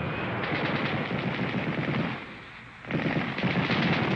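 Rapid automatic gunfire, dense bursts like a machine gun, with a short lull a little past halfway before the firing resumes.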